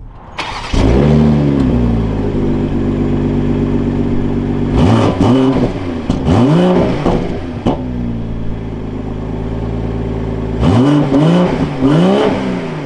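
BMW B58 3.0-litre turbocharged inline-six, heard at the exhaust, starting up with a quick rising flare that settles into a steady idle. It is then revved in two sets of short throttle blips, each rising and falling in pitch, with idle between them.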